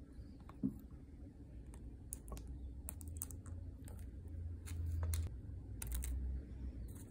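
Light clicks and taps of a wax seal stamp and a metal palette knife against a set sealing-wax seal and silicone mat, as the stamp is lifted off and the seal is loosened. One sharper click comes just over half a second in, followed by a string of small separate ticks.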